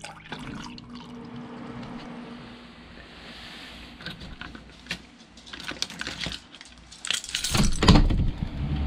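Coffee pouring from a carafe into a ceramic mug, then a bunch of keys jangling as they are lifted off a wall hook. Near the end a storm door's latch is worked and the door opens with a loud burst of noise, the loudest moment.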